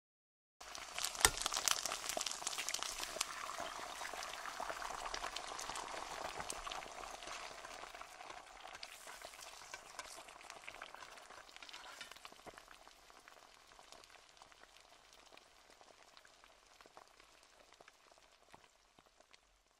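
Crackle and hiss of old recording surface noise, thick with small pops, starting abruptly under a second in with one loud pop shortly after, then slowly fading away.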